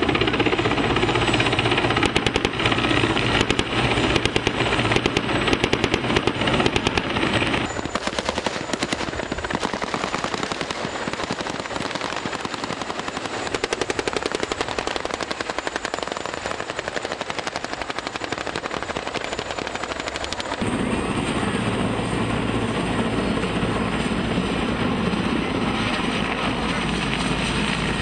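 Rapid automatic gunfire over running engines. For the first several seconds a low transport helicopter's rotor and engine run under it, and near the end a heavier engine rumble returns.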